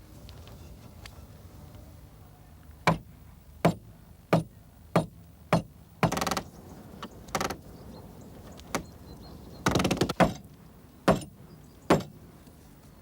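Hammer blows on timber: a run of sharp single knocks about two-thirds of a second apart, then a few longer, rougher strokes mixed with more spaced knocks.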